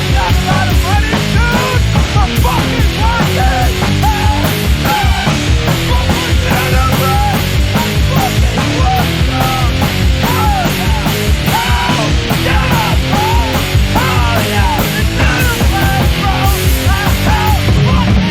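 Punk rock song played loud and fast: a band with dense, rapid drumming and a full, distorted wall of sound.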